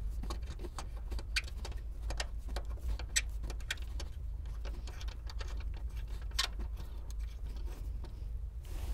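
Scattered small metallic clicks and ticks as a seat mounting bolt is turned by hand through the seat rail into its threaded hole in the floor, over a steady low rumble.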